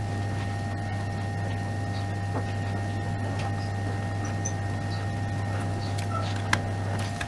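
Hot-air rework gun blowing steadily onto a TV power-supply board, a low even hum, heating the solder to free a burnt MOSFET. The blower cuts off just before the end, with a sharp click shortly before that.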